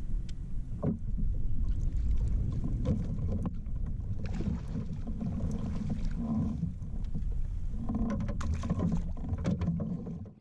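Wind buffeting the microphone, with scattered splashes and knocks as a fish is scooped in a landing net beside a kayak. The sound cuts off suddenly at the very end.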